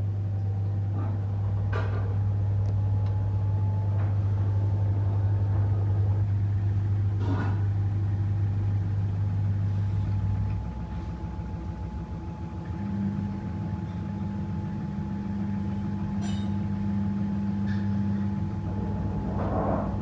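Samsung washing machine running: a steady motor hum that drops off about halfway through, with a higher hum coming in later. A few sharp clicks and a faint steady high tone are heard along with it.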